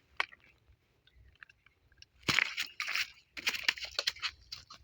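Crisp food being crunched and chewed, in a few short, noisy bursts beginning about two seconds in.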